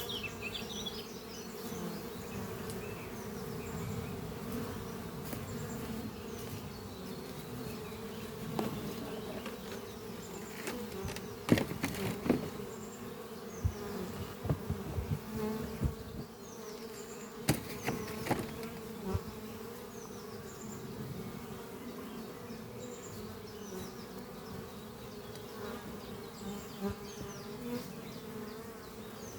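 Honeybees buzzing in flight at the entrance of a busy hive, a steady hum of many wings. A few sharp taps stand out near the middle.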